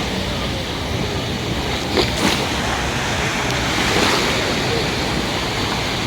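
Sea surf washing onto the beach under a steady rush of wind, with two short knocks about two seconds in.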